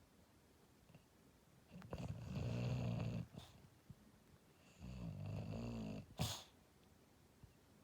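English bulldog snoring in its sleep: two long snores about three seconds apart, each with a whistling upper tone over a low rasp. A short sharp sound comes right after the second.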